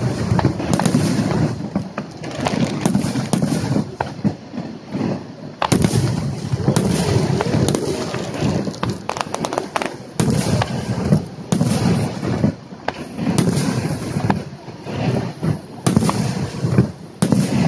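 Aerial fireworks shells bursting in quick, irregular succession: sharp bangs with crackle between them. People's voices are heard underneath.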